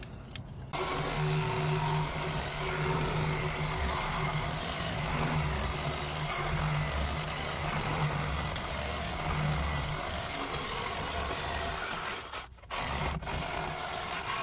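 Cordless reciprocating saw cutting the end of a steel tube, running steadily with a low hum under the rasp of the blade. It starts under a second in, stops briefly about twelve seconds in, then cuts again near the end.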